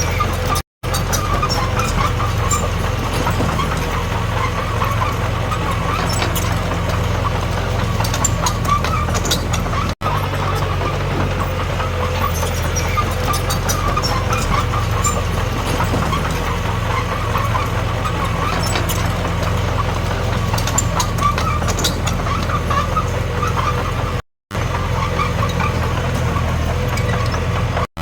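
Diesel engine of a Komatsu D21P crawler bulldozer running steadily, with light metallic clicking over it. The sound breaks off into silence briefly a few times.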